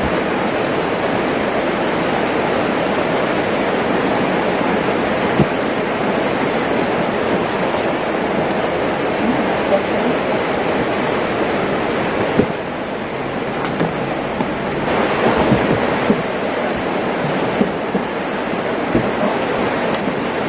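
Steady, even rushing noise of heavy typhoon rain and floodwater, with a few small knocks.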